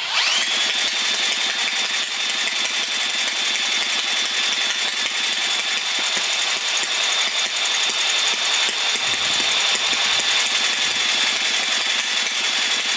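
A power drill spins a Honda Z50's 49cc four-stroke single over by its flywheel nut, with a loud, steady motor whine that climbs quickly at the start and then holds one pitch. The engine turns over without catching; its tired top end turns out to hold no compression.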